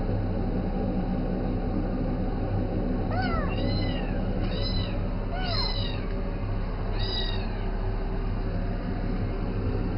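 Cat meowing in about five short, arched calls a little over three seconds in, over a steady low hum.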